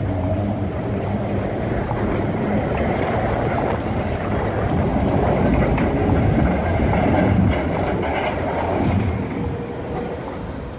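Tram running along the rails, a steady rumble with wheel clatter that grows a little louder and then fades away near the end as it passes.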